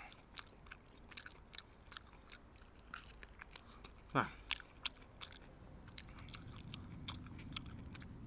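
A person chewing and biting a piece of braised yak hoof, with many small clicks and smacks of the mouth. About four seconds in comes one brief sound that falls steeply in pitch, the loudest moment.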